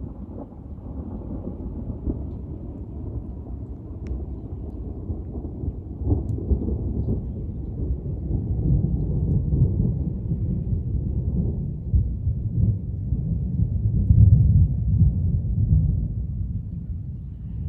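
A long, deep roll of thunder that grows steadily louder, is loudest about three-quarters of the way through, and eases a little near the end.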